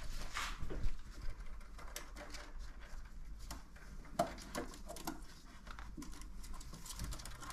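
Scuffling with irregular small taps and clicks as a green-cheeked conure tussles with a plush budgie toy on a wooden shelf.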